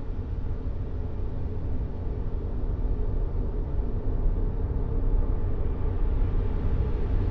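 Steady white-noise sleep sound, heavy in the deep bass and thinning out toward the treble, with no breaks, clicks or crying.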